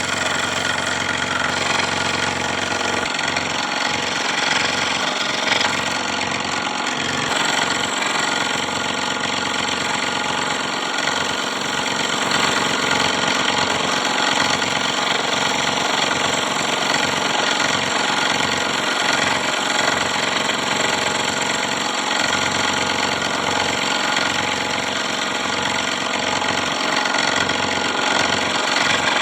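Electric scroll saw running steadily, its motor humming under the rapid chatter of the reciprocating blade.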